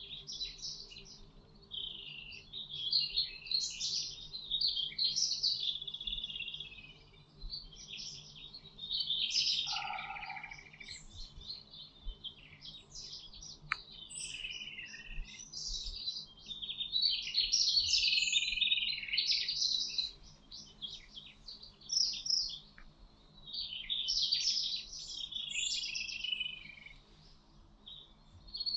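Several songbirds singing at once in a dense chorus of overlapping high, rapidly warbling phrases, with a brief lower-pitched call about ten seconds in.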